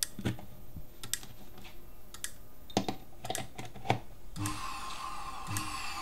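Scattered clicks and knocks, then about four seconds in a vacuum-cleaner motor driving a small generator starts up and runs with a steady whine that pulses about once a second.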